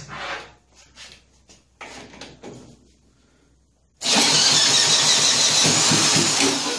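An electric drill spins over the 125 cc four-stroke engine of a 1959 Mitsubishi Silver Pigeon scooter to crank it, with gasoline squirted in as a primer. It starts loud and suddenly about four seconds in, the drill's whine over the engine turning over. Before that there are a few brief handling noises.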